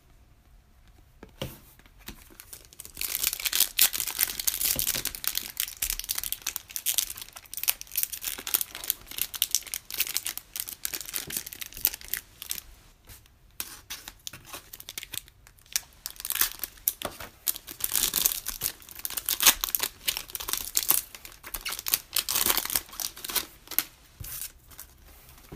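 Foil wrappers of Panini Prizm basketball card retail packs being torn open and crinkled by hand, in irregular crackly spurts with brief pauses.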